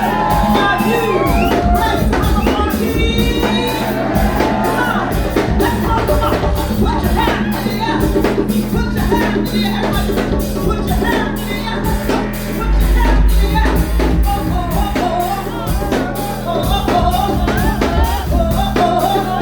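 Live Afro-funk band playing: a steady drum-kit beat with a held bass line and a singer's voice over it.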